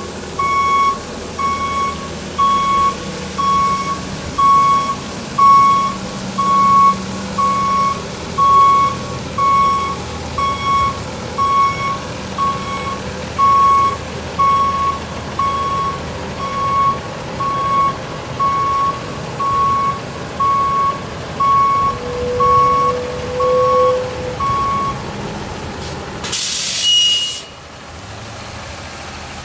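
Kenworth T480 water truck's backup alarm beeping about once a second over its running diesel engine, stopping after about 25 seconds. About a second later comes a loud burst of air hiss from the air brakes, and then the engine idles.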